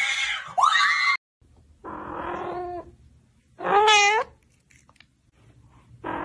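Kitten meowing: a quieter call about two seconds in, a loud meow with a wavering pitch about four seconds in, and another starting near the end. Before that, a high gliding cry during the first second is cut off abruptly.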